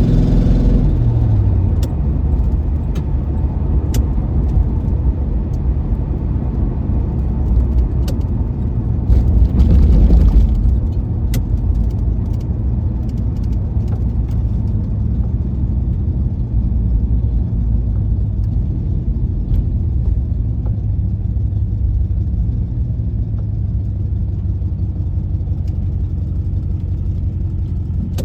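1996 Chevrolet Impala SS's LT1 V8 dropping from a light rev to a steady idle in the first second, with a brief louder rush about ten seconds in and scattered light clicks. The owner is checking this idle for a suspected exhaust leak.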